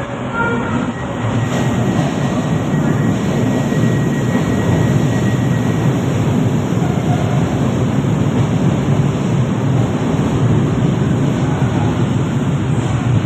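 Light-rail train pulling into a station along the platform: a steady rumble of wheels and running gear as the cars pass close by, building over the first second or two and then holding.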